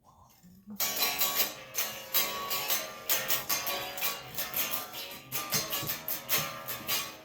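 Guitar music with a steady strummed rhythm, starting suddenly about a second in.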